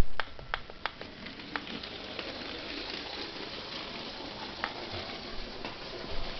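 A few sharp clicks in the first second and a half and one more near the end, over a steady hiss.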